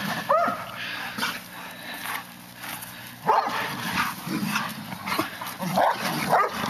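Greater Swiss Mountain Dogs barking and yipping in short bursts as they wrestle in play.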